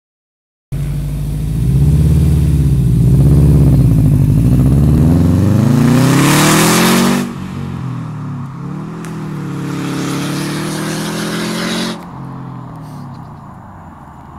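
Car exhaust with the muffler removed. The engine rises and falls unevenly at first, then accelerates hard with a rising pitch and a loud rasp. About seven seconds in it cuts back, pulls on more steadily, and eases off again near the end, fading as the car drives away.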